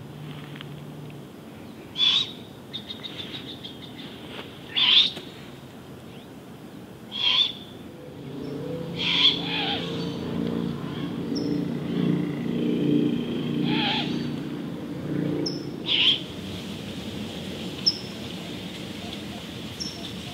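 Great horned owls screeching: six harsh, raspy calls about half a second long, spaced a few seconds apart. This is the hissing screech that young great horned owls give when begging for food. A lower steady hum runs under the middle calls, and small birds give short high chirps near the end.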